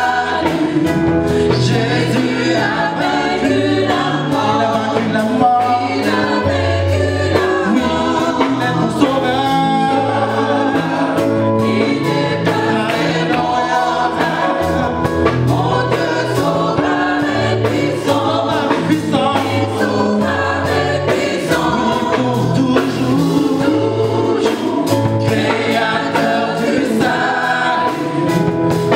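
Gospel praise-and-worship singing by a group of women vocalists on microphones, backed by a band with a bass line moving in steady low notes.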